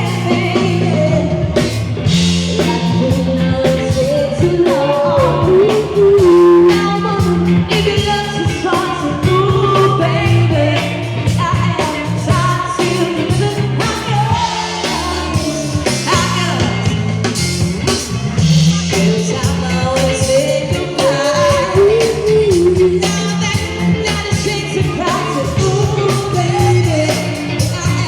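Live rock band playing a song with a singer, guitar, bass and drums keeping a steady beat.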